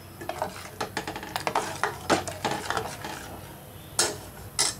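Slotted metal spoon stirring a thin onion-tamarind gravy in a stainless steel pot. The spoon scrapes and clinks against the pot, with sharper knocks about two seconds in and twice near the end.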